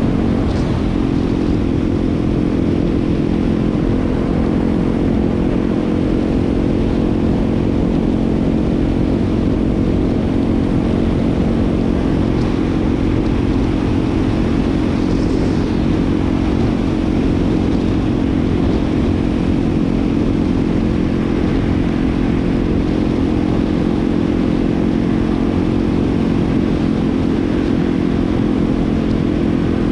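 Yamaha WR250R's 250 cc single-cylinder four-stroke engine running at a steady speed while the motorcycle is ridden, its pitch holding level throughout.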